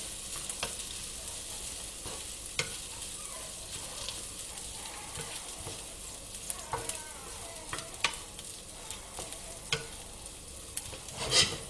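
Rice toasting in butter with asparagus and onion in a frying pan over high heat: a steady sizzle as a wooden spatula stirs and scrapes through it, with a few sharp clicks of the spatula against the pan.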